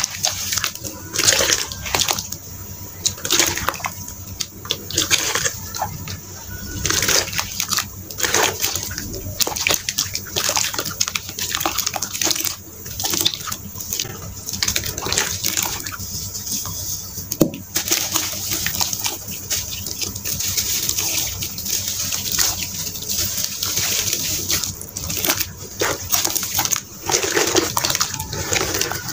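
Hands squishing and sloshing through a watery red sand slurry in a plastic tub: a run of irregular wet squelches and splashes, close to the microphone.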